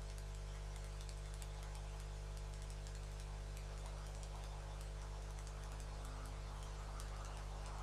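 Hot-air rework gun running with a steady hum and airflow hiss while it heats flux and solder to desolder a small chip from a laptop motherboard. Faint scattered ticks come through throughout, and the hiss swells a little about halfway through.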